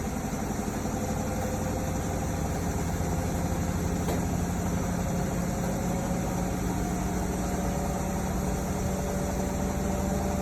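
Hotpoint-Ariston RSG 825 J washing machine running: a steady motor hum with a higher whine that rises slowly in pitch.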